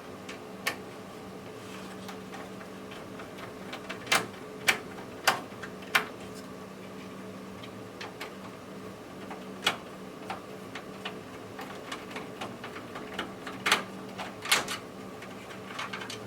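Hands working inside a desktop PC case, giving a run of sharp, irregular clicks and knocks as parts and connectors are handled, the loudest four coming in quick succession about four to six seconds in. A steady low hum runs under them.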